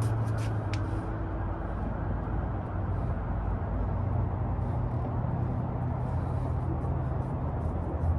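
Steady low background rumble and hiss of outdoor ambience, with a few light clicks in the first second.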